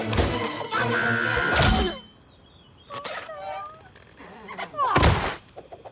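Cartoon music that stops abruptly with a loud crash about two seconds in, followed by short wavering rabbid vocal noises and a second loud thud near the end.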